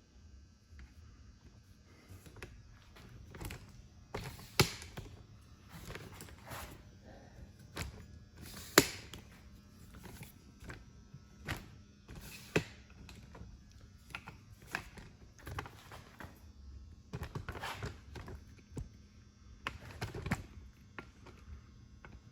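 Irregular clicks and knocks, about a dozen spread out with the loudest near 9 seconds in, over a faint steady hum.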